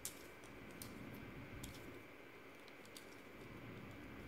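Faint, scattered clicks of a plastic Transformers Ratchet ambulance figure's parts being swung and snapped into place by hand during transformation.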